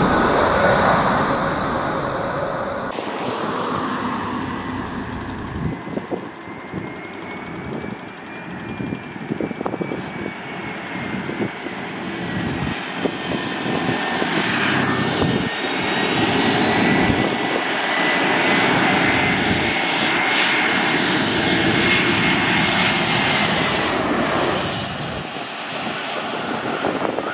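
Airbus A321-211 airliner's CFM56 jet engines on approach and landing: a steady jet noise with a high whine, loudest at the start, and the whine dropping away a few seconds before the end as the aircraft reaches the runway.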